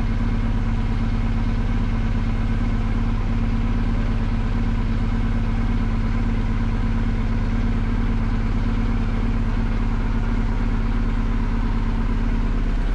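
BMW R 1250 GSA boxer-twin engine idling steadily.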